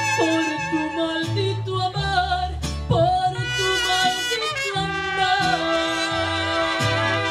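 Mariachi band playing live: violins and trumpets over strummed guitars and a stepping bass line.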